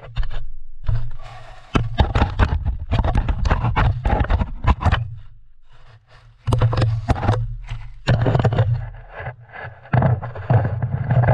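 A husky's fur and muzzle rubbing and bumping right against the camera's microphone: loud scraping and knocking in irregular bursts with a deep rumble, broken by a couple of short lulls.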